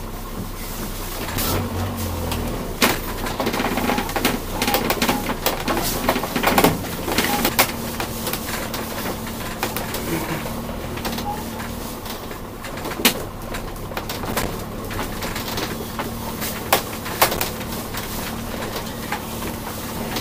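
Subaru Libero mini camper driving over a rough dirt track, heard from inside the cab: the engine drones steadily while the body and interior rattle and knock over the bumps, with a couple of sharper knocks near the end.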